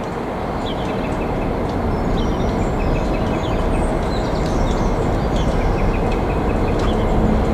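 Two Freightliner Class 59 diesel locomotives running light engine, their EMD two-stroke V16 engines growing steadily louder as they approach.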